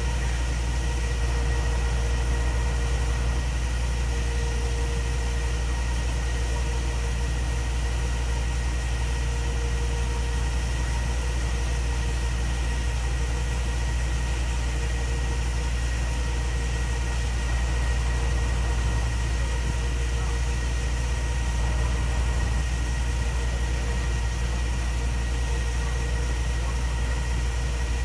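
An engine idling steadily: a constant deep drone with a faint steady whine above it.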